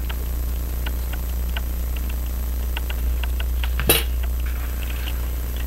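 Light, irregular metallic clicks and taps from small parts being handled on a Hermle grandfather clock movement, with one sharper click about four seconds in, over a steady low hum.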